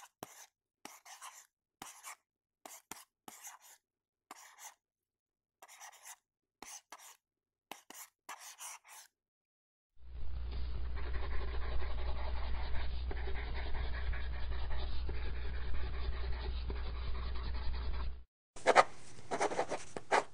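Pen or pencil writing on paper: short scratching strokes separated by dead silence, then about ten seconds in a longer unbroken stretch of scribbling over a low hum, and a brief further burst of scratching near the end.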